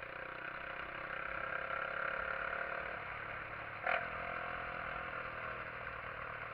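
SYM XS125-K motorcycle's single-cylinder 125 cc four-stroke engine running while riding at low speed, its pitch rising a little in the first couple of seconds and then easing off. A short sharp knock comes about four seconds in.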